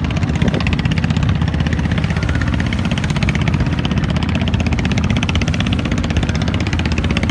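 Boat engine running steadily while under way, a loud fast even beat of firing pulses with no change in speed.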